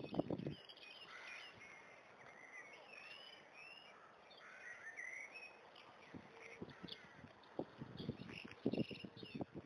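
Small songbirds singing outdoors: a run of short rising and falling chirps and warbled phrases over a faint hiss. There are low rumbling bursts at the start and again near the end.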